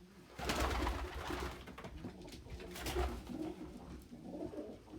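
Domestic pigeons cooing in low, repeated coos, with a loud rustling burst early on and a shorter one about three seconds in.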